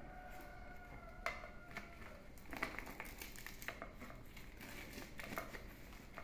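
Dong leaves crinkling and rustling in short, scattered bursts as hands fold them around sticky rice to wrap a bánh chưng.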